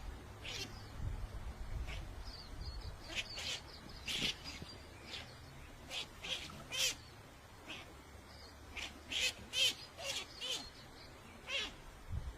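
Short, sharp, high-pitched animal calls, repeated irregularly in clusters of two to five.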